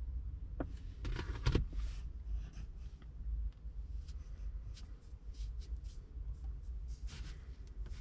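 Light handling noise: a short burst of rubbing and clicking about a second in, then scattered small clicks, over a low steady rumble.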